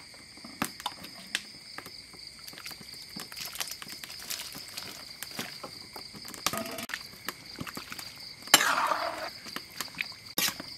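Night insects, crickets among them, chirring steadily in several high tones, with scattered small clicks and clinks. A brief, louder rush of noise comes about eight and a half seconds in.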